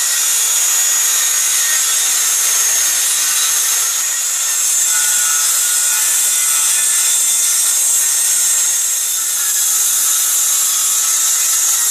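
Corded circular saw cutting through plywood sheeting: a steady, loud high-pitched cutting noise that dips briefly about nine seconds in.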